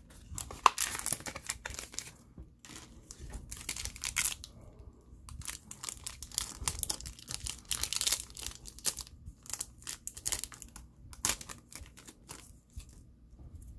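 Bakugan trading-card booster pack being torn open by hand: irregular bursts of tearing and crinkling of the pack wrapper, with short pauses between them.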